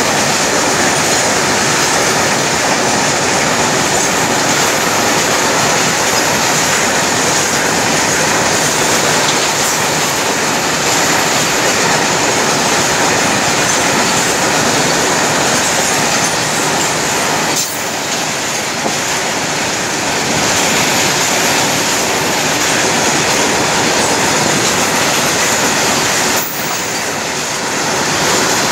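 Covered goods wagons of a long freight train rolling past at speed, close by: a loud, steady noise of steel wheels running on the rails, with two brief dips in loudness in the second half.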